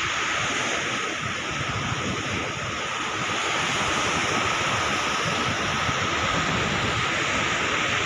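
Large waves breaking on a sandy beach, a steady rushing wash of surf, with wind buffeting the microphone.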